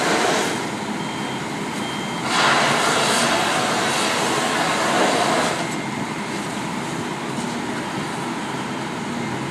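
Aerial ladder fire truck's engine and pump running steadily to feed the ladder's water stream. A steady rushing roar grows louder for about three seconds in the middle.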